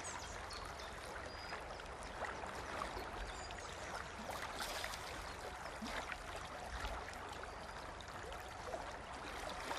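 River water flowing, a steady quiet rush.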